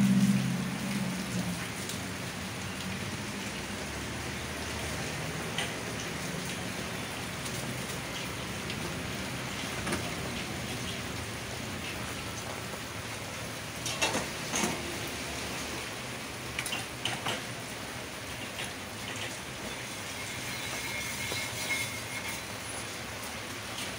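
Steady rain falling, with a few short knocks about halfway through.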